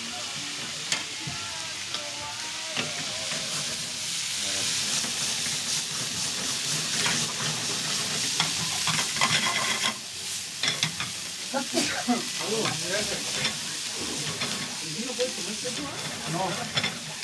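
Food sizzling and frying in several steel skillets on gas burners, with metal tongs and spatulas clicking and scraping against the pans. The sizzle is loudest from about four to ten seconds in.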